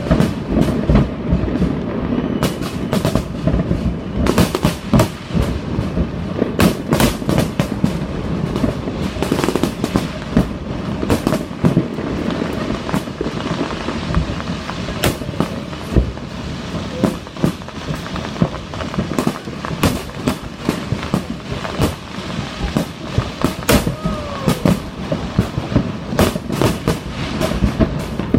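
Aerial fireworks display going off: many sharp bangs and cracks in quick, irregular succession over a continuous low rumble of overlapping booms.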